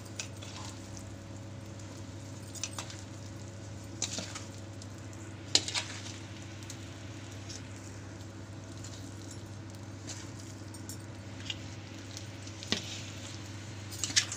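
Steel spoon stirring a warm flour, almond and grated-coconut mixture in a large steel bowl: soft scraping with about half a dozen sharp clinks of spoon on bowl, the loudest a little past the middle, over a steady low hum.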